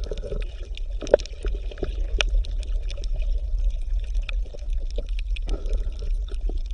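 Water gurgling and trickling, with many small irregular clicks and pops over a steady low rumble.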